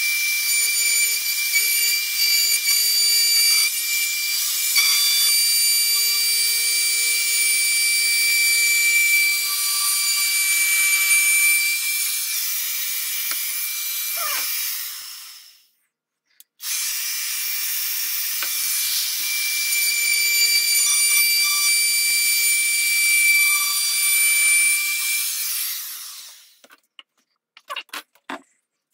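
Makita compact router cutting a barrel groove along a wooden rifle stock: a steady high whine with cutting noise, which spins down and stops about halfway. It starts again a second later, runs for about ten seconds and spins down again, followed by a few light clicks near the end.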